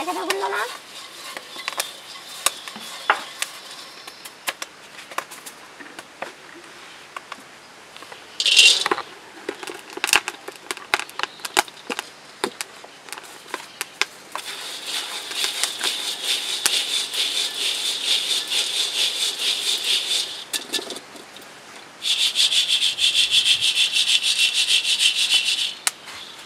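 Scattered clicks and knocks. After them comes a fast, rough rasping rub for about six seconds, then a short pause and a louder stretch of the same rubbing for about four seconds near the end.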